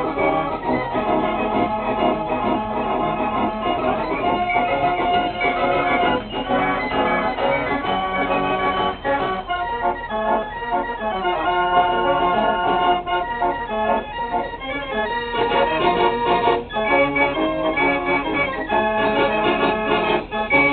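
Marenghi fairground organ playing a tune, a continuous run of changing organ notes.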